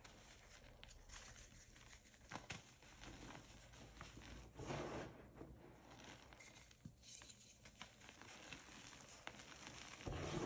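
Hands crushing and rubbing gym chalk chunks in loose chalk powder: soft crumbling and crunching with scattered small crackles, and a louder crunch about halfway through.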